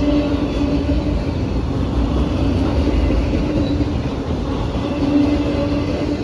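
Norfolk Southern freight train rolling past, a steady loud rumble of wheels on the rails with an on-and-off steady tone over it.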